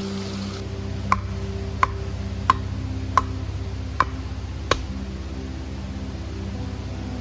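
Six sharp knocks at an even pace, about one every 0.7 seconds, each with a brief ringing tail, over steady background music.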